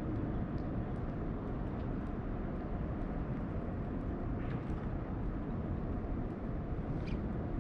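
Steady low rumbling outdoor background noise, with a couple of faint short ticks.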